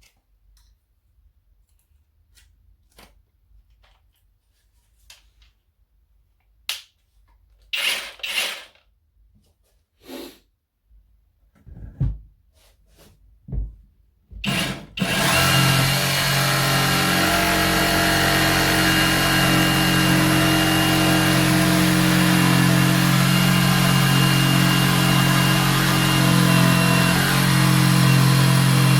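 A few handling clicks and knocks, then about halfway through an Erbauer EJS 18LI 18V cordless jigsaw starts. It runs steadily at full speed, cutting into a 40 mm worktop.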